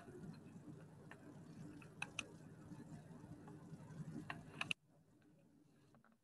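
Faint low room hum with a few sharp small clicks, cutting off suddenly to near silence a little before five seconds in.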